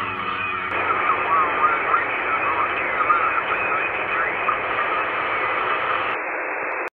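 President Lincoln II+ CB radio on channel 38 lower sideband receiving skip: a loud hiss of static with faint, garbled sideband voices wavering through it. A low steady hum gives way to louder hiss under a second in, and the sound stops abruptly at the very end.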